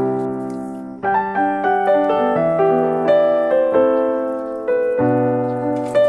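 Background piano music: a gentle melody of single notes over held chords, each note struck and fading.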